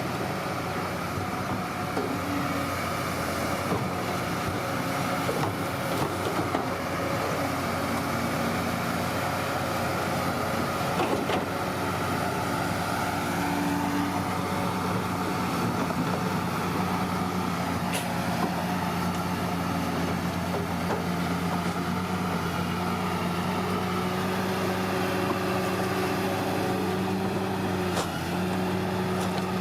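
Bulldozer's heavy diesel engine running steadily under work, with a few sharp metallic clanks.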